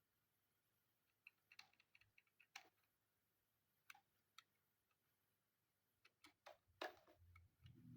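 Faint, irregular clicks and taps of small parts being handled during work on an all-in-one computer, coming in small clusters, with a low hum starting near the end.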